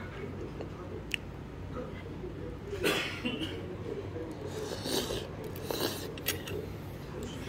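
Stainless chopsticks stirring in a black stone pot of soup, with a few short scrapes and clicks against the pot, over a steady low background hum.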